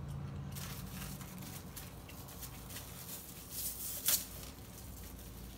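Faint crunching and small clicks of fried okra being picked up and chewed, with one sharper click about four seconds in, over a steady low hum.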